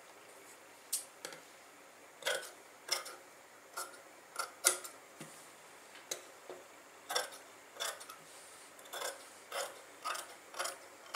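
Tailor's scissors snipping through fabric: a run of short, sharp, irregular snips, about one to two a second, as the excess inner fabric is cut away around a kurti's neckline.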